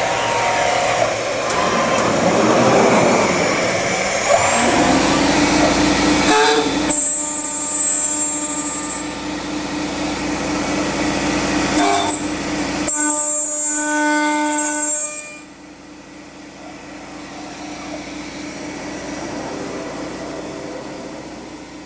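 Tekna TK446 three-axis CNC machining center milling an aluminium door profile: noisy cutting for the first four seconds or so, then a steady hum with two short high whines. About fifteen seconds in it drops to a quieter steady machine hum.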